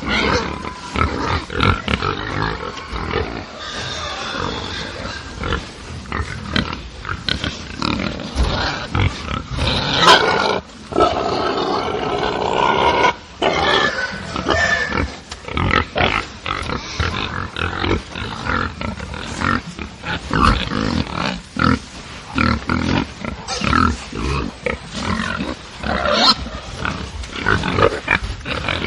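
A group of agitated pigs grunting and squealing over one another in a constant, irregular stream of short calls. A longer, louder cry comes about ten seconds in and lasts a few seconds.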